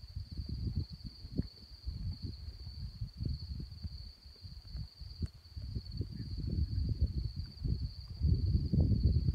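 Crickets chirring in one steady, high, unbroken trill. Under it, wind buffets the microphone in irregular low gusts that grow louder near the end.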